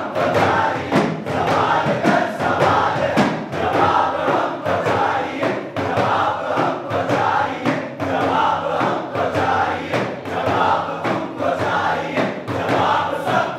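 A group of voices chanting together in rhythm to a hand-beaten frame drum, struck about twice a second.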